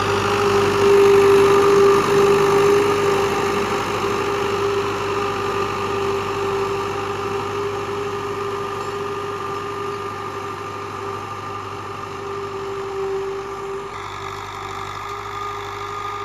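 Fiat 640 tractor's four-cylinder diesel engine running steadily while pulling a tillage implement over prepared ground, under light load. The engine slowly fades as the tractor moves away.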